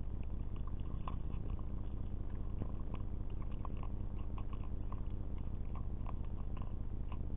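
A marten eating sultanas and peanuts from a bird feeder, with small, irregular clicks and crunches of chewing and nibbling over a steady low hum.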